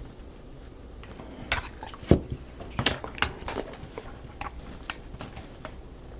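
Small wooden kit parts clicking and knocking against each other as they are handled and fitted together, with a few sharp taps at irregular intervals, the loudest about two seconds in.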